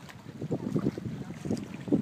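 Wind buffeting the phone's microphone in irregular low gusts.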